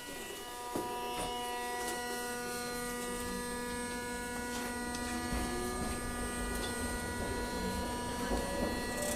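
Hiroshima Electric Railway 800-series tram's armature chopper control giving a steady electric whine of several pitched tones as the tram draws power to pull away. From about three seconds in, a low rumble of the running gear builds underneath.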